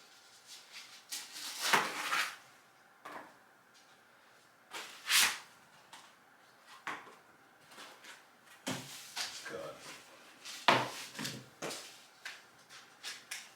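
Irregular clicks, knocks and rattles of stroller parts being handled and fitted together, with sharper knocks about 2, 5 and 11 seconds in.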